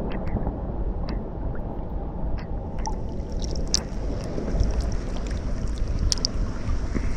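Small ocean waves washing onto the shore, a steady rush of surf with scattered splashes, with wind rumbling on the microphone.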